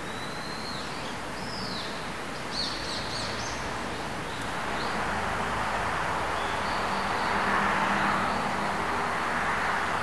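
Forest ambience: small birds chirp a few times in the first few seconds over a steady outdoor hiss. From about halfway a broad rushing sound swells up, peaks near the end and eases slightly.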